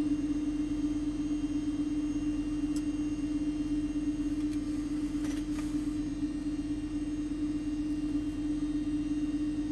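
Steady electrical hum on a repair bench, with a faint tick about three seconds in and a couple more just past the middle.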